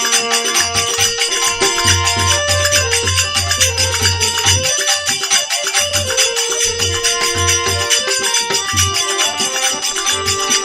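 Instrumental interlude of a Rajasthani folk bhajan: a melody instrument plays held notes over a steady jingling percussion rhythm, with a low drum beating in short runs.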